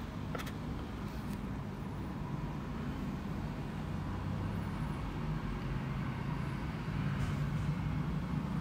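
Steady low whir and hum, like the small DC gear motors of a hobby robot car running as it drives.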